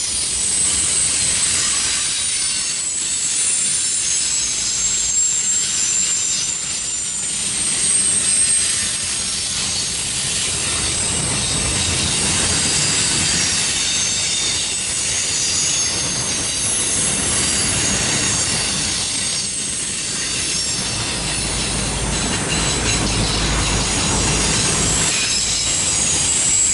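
Loaded autorack freight cars rolling by: a steady noise of steel wheels on rail with high-pitched wheel squeal running over it.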